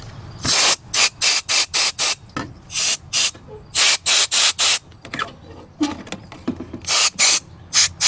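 Can of compressed air duster fired in many short hissing blasts, in quick runs with a pause about five to seven seconds in, blowing residue out of the burner area of a propane camper fridge.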